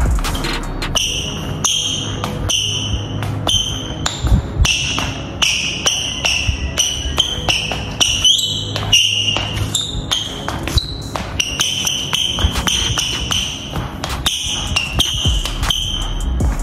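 Rubber outsoles of Way of Wade 808 3 Ultra basketball shoes squeaking repeatedly on a tile floor during quick cuts and shuffles: many short, high-pitched squeaks, some sliding up in pitch, with the thuds and taps of the steps. The squeaks show the outsole gripping hard, which the wearer finds very grippy even on a slightly dusty floor.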